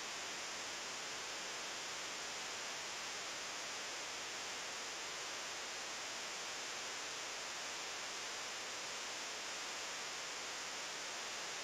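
Steady, even hiss of recording noise with nothing else heard.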